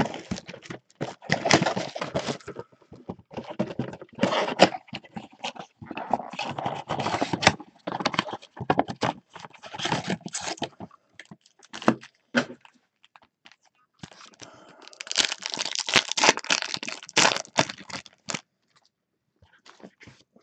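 Trading-card mega box and its foil card packs being unwrapped and torn open by hand: irregular crinkling and tearing that stops about 18 seconds in.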